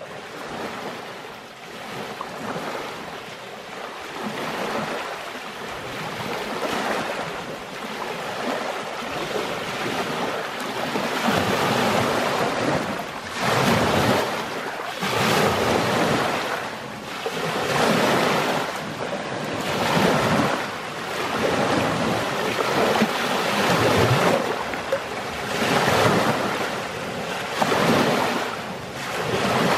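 Small lake waves washing in and splashing over a stony shoreline, in surges every second or two that grow louder after the first several seconds.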